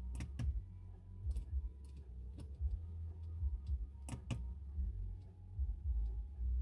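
Sharp clicks, several in close pairs, of car dashboard controls being pressed while setting the clock. A low, uneven rumble runs underneath.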